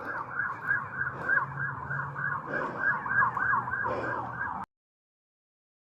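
Emergency-vehicle siren wailing in a fast yelp, about three rising-and-falling sweeps a second, then cutting off suddenly a little over four and a half seconds in.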